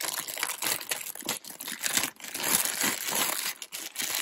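Thin clear plastic bag crinkling and crackling in irregular bursts as hands open it and pull out a USB cable.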